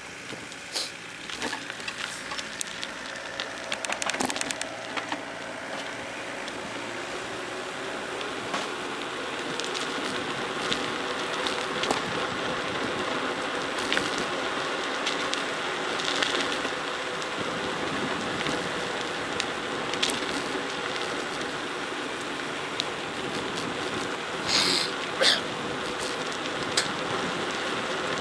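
Bicycle tyres rolling down a gravel forest road: a steady rushing, crackling crunch of gravel with scattered clicks and rattles, growing louder as speed builds, and two short sharp bursts near the end.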